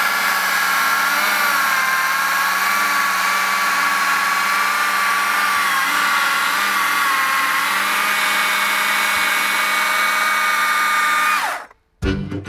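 Stihl MSA 220 battery chainsaw cutting through a log: a steady electric whine of motor and chain under load, its pitch sagging slightly in the middle of the cut. Just before the end it winds down and stops, and music comes in.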